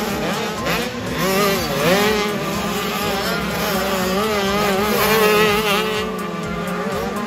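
Several motocross bike engines revving up and down at once, their pitches rising and falling as they accelerate and back off.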